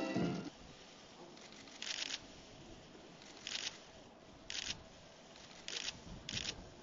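A brass band's music stops in the first half second. Then press cameras' shutters click in five short bursts about a second apart during a handshake photo.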